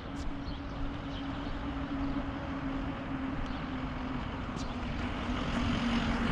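A motor vehicle's steady hum with noise, growing louder toward the end as it approaches, its tone dropping slightly in pitch near the end.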